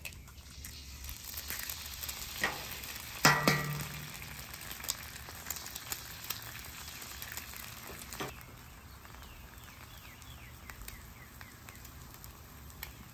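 Eggs frying in oil on a Blackstone griddle's steel top, a steady sizzle kept up by residual heat with the burners off. A few sharp taps and cracks come as eggshells are broken open, and the sizzle eases somewhat in the second half.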